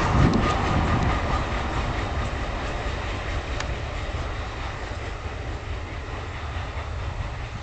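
Container freight train rolling away along the track, its wheels rumbling on the rails with a few sharp clicks in the first second, fading steadily as it draws off.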